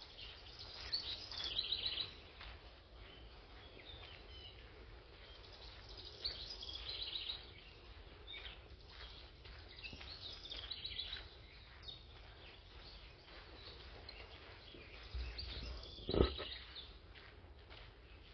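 Small birds chirping and calling in short bursts every few seconds over a steady low outdoor rumble, with a single knock about sixteen seconds in.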